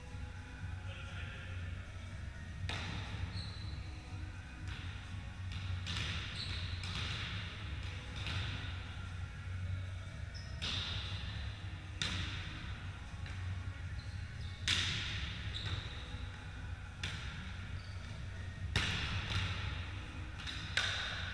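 A volleyball being played in a reverberant sports hall: sharp slaps of hands and arms on the ball every one to three seconds, each ringing in the hall's echo. Short squeaks, typical of shoes on the wooden court, come between the hits, over a steady low hum.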